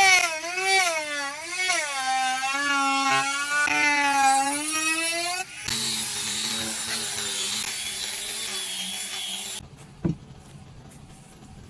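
Electric trim router cutting into a wooden table leg, its motor whine sagging and recovering in pitch as the bit bites into the wood. About five and a half seconds in it gives way to an angle grinder with a sanding disc running steadily against the timber, which stops abruptly near ten seconds in, leaving a couple of faint knocks of wood being handled.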